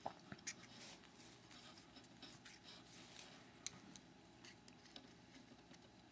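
Faint, scattered light clicks and ticks of small parts of a gutted lock cylinder being handled, a dozen or so irregular taps, the sharpest a little past the middle.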